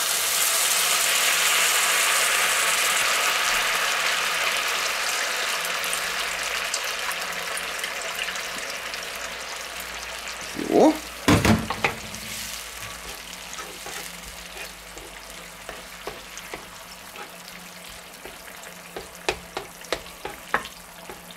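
Browned minced meat in a hot pan sizzling loudly as brown liquid poured off a bowl of soaked mushrooms hits it; the sizzle dies down steadily over about ten seconds as the liquid starts to simmer. About eleven seconds in, a few sharp knocks as the wooden spatula scrapes out the metal bowl, then light clicks of the spatula against the pan as the sauce is stirred near the end.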